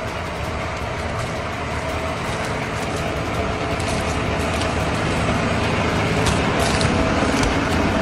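John Deere 6250R tractor's six-cylinder diesel engine running steadily under load, pulling a seven-furrow Lemken reversible plough through hard soil, with light clicks and crackle from the plough and stubble. It grows louder as the tractor draws up alongside.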